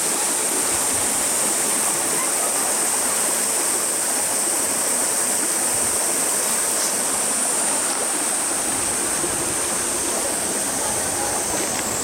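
A shallow mountain stream rushing and splashing over a small rocky cascade, a steady rush of water. A steady high-pitched drone sits above the water noise.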